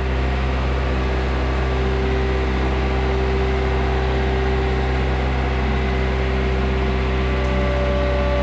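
Farm machine's engine running steadily as it drives between hay bales, with a steady whine over the engine note; a second, higher whine comes in near the end.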